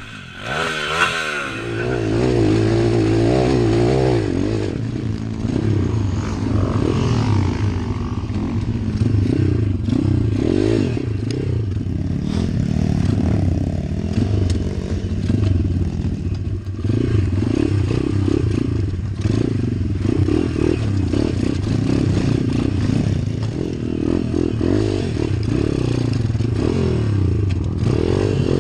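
Pit bike's YX 140 cc single-cylinder four-stroke engine, revved up and down continually while riding off-road, with the bike rattling over rocky ground.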